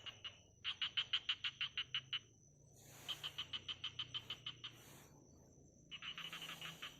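A frog calling in rapid trains of clicking pulses, about eight a second, each train lasting about a second and a half, three times over. A thin, steady high tone runs beneath.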